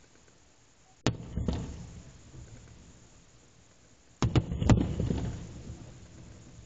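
Aerial firework shells bursting: a sharp bang about a second in, then a quick cluster of several bangs about four seconds in, each group followed by a low rolling rumble that dies away.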